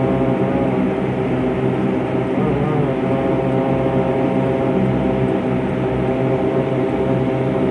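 Propeller airplane's engine running with a steady, loud drone of several held tones, the pitch wavering slightly about two and a half seconds in.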